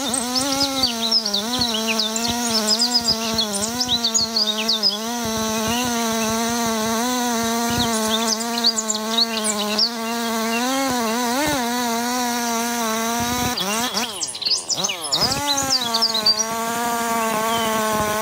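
Chainsaw engine running steadily at high revs with small wobbles in pitch as it cuts; its pitch drops and climbs back up once about fourteen seconds in. Birds chirp over it.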